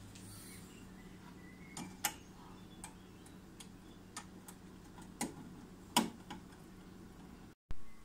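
Light, irregular clicks and ticks of a screwdriver working the screw terminals of a small switching power supply, about ten of them over a faint steady hum. The sound drops out briefly near the end.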